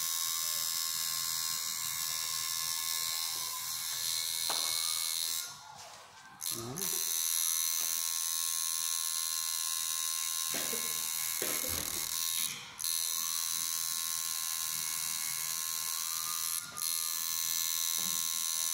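Coil tattoo machine buzzing steadily as it needles the skin, stopping briefly three times as the machine is switched off and on, the longest break about six seconds in.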